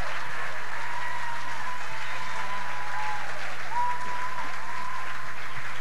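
Theater audience applauding steadily.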